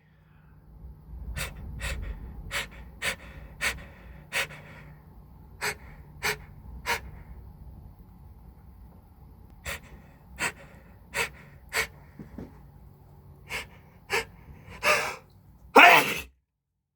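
Allergy sneeze build-up: a long run of short, sharp gasping inhales in two runs with a pause of a few seconds between them. It ends near the end in one loud sneeze that cuts off suddenly.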